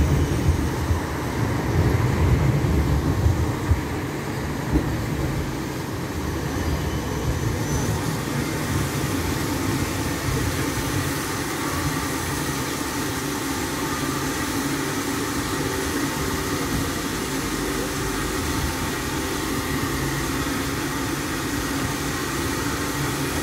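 A modern low-floor city tram rolling past close by: a low rumble for the first few seconds, with a couple of sharp knocks. After that comes steady city street noise.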